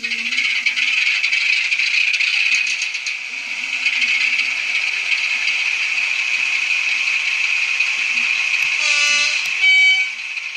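Sound decoder in an N gauge Farish Class 45 'Peak' model playing a diesel engine running, thin and high through its tiny speaker. Near the end the two-tone horn sounds, a lower note followed by a higher one.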